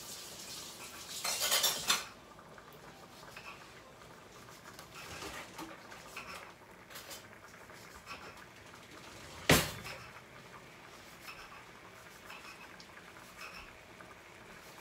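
Kitchen cookware and utensil clatter: scattered light metal clinks, a brief rush of noise about a second in, and one sharp clank of metal on metal about nine and a half seconds in, the loudest sound.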